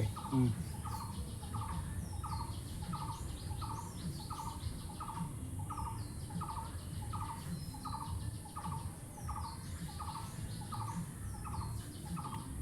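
A bird's short call repeated at a steady, even pace, about three notes every two seconds, with fainter higher chirps from other birds over it.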